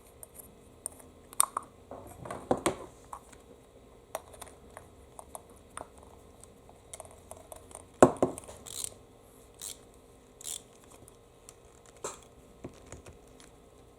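Scattered small clicks, taps and handling noises of a lawnmower carburetor's float bowl and bowl nut being fitted by hand, with a sharper knock about eight seconds in.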